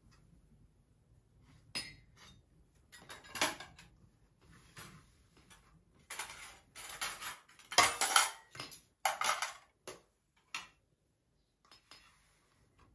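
Cutlery and dishes clinking and scraping in short irregular bursts, busiest and loudest about six to nine seconds in.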